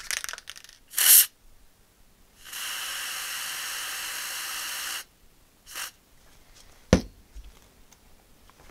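Aerosol can of white lithium grease spraying: a short, loud burst about a second in, then a steady hiss for about two and a half seconds and another brief puff near six seconds. A single sharp knock follows about seven seconds in.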